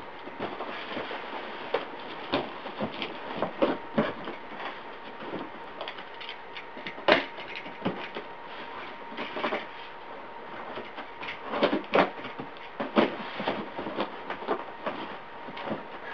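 Cardboard box and plastic packing being handled and pulled out: irregular rustling and crinkling with scattered sharp crackles and knocks, the loudest about seven and twelve seconds in.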